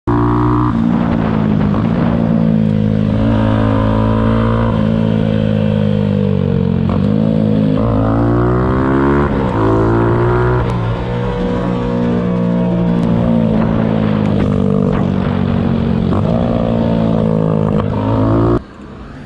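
Motorcycle engine running under way, a steady engine note whose pitch dips and climbs again several times about halfway through as the throttle is rolled off and opened.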